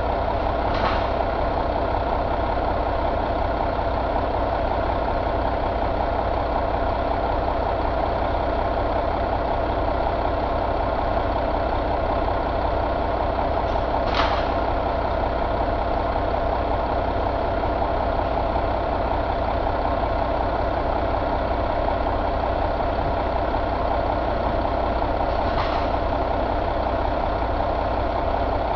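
Mack MP8 13-litre inline-six diesel engine idling steadily, with three short hisses about twelve seconds apart.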